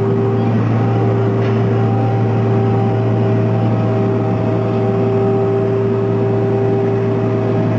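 Diesel engine of a compact ride-on street-cleaning machine running steadily, a continuous drone with a low hum and a few steady higher whining tones.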